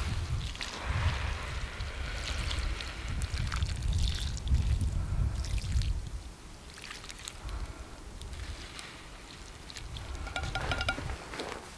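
Water trickling and splashing in uneven spurts, over a low rumble of wind on the microphone.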